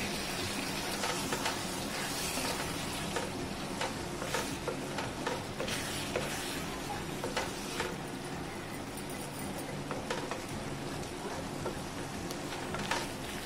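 Karandi (tiny shrimp) in masala sizzling in a nonstick pan, a wooden spatula stirring and scraping through them with short sharp scrapes. The shrimp have let out their water and are still wet, cooking down until the water is gone and the oil separates.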